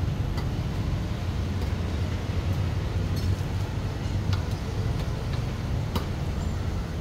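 Steady low rumble of street traffic, with about five sharp light clicks scattered through it as metal tongs knock against stainless steel bowls of pickled fruit.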